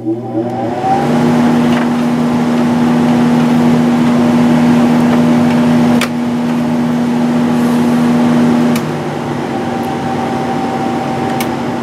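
A 1997 Sharp 8,500 BTU window air conditioner's fan motor spinning up and then running steadily with a hum, the compressor not yet running. A click about six seconds in, after which the unit is a little quieter, and the strongest hum tone drops out near nine seconds.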